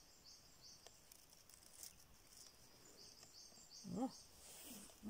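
Faint forest ambience with a small bird calling: short runs of three or four quick, high, falling chirps. About four seconds in, a person gives a brief low hum of assent, "mm".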